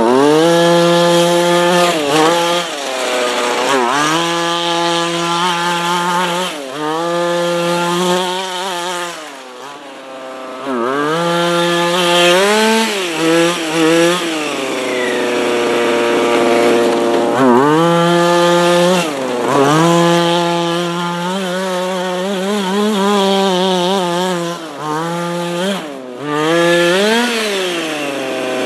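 Small two-stroke petrol engine of a 1/5-scale HPI Baja 5SC radio-controlled car revving hard and dropping back again and again as it is driven. Each throttle burst climbs quickly to a steady high pitch and falls away when the throttle is released, with a quieter lull about ten seconds in.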